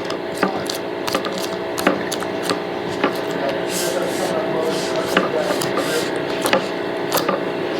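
A foam squishy toy being cut open, heard as irregular sharp clicks and snips, one or two a second, over a steady background drone.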